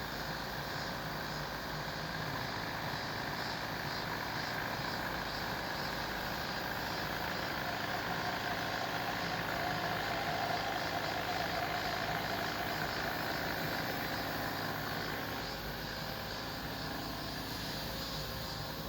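Diesel engine of heavy construction machinery running steadily, with a faint whine that comes in about a third of the way through and fades a few seconds later.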